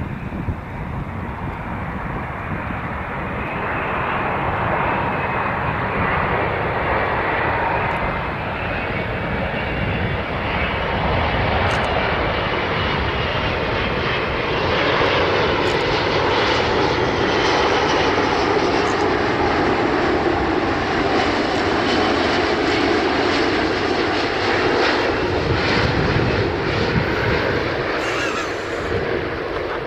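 Airbus A380 on final approach with gear down, its four jet engines running at approach thrust as it passes low and close. The jet noise grows louder over the first half and stays loud, with faint whining tones gliding in pitch.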